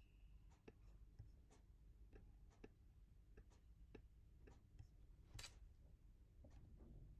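Near silence: room tone with faint, irregular small clicks and taps, one slightly louder about five and a half seconds in.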